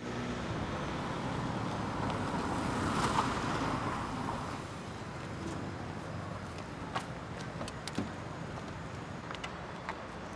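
Street traffic noise, with a car going past that swells and fades about two to four seconds in. After that comes a steady hum of traffic with a few sharp light clicks.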